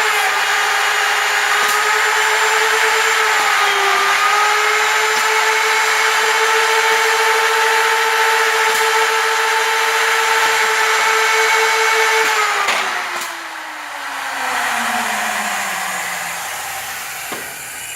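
Hinge-routing machine's routers running at high speed, a steady high-pitched whine that sags briefly a couple of times as they cut 3-inch hinge pockets in a door. About 12 seconds in they switch off and spin down, the pitch falling steadily.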